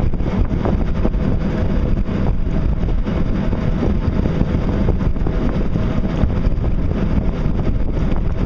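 A shaft-drive boat motor running steadily under way at speed, with wind buffeting the microphone.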